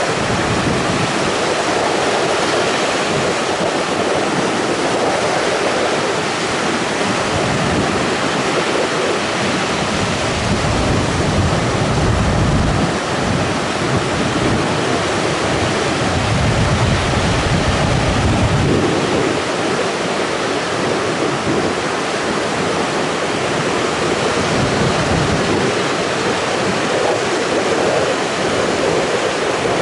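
Wind buffeting the microphone in irregular low rumbling gusts over a steady rushing noise.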